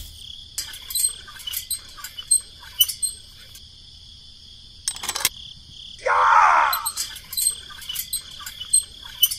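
Crickets chirring steadily, with scattered light clicks, a single knock about five seconds in, and a short falling sound just after six seconds.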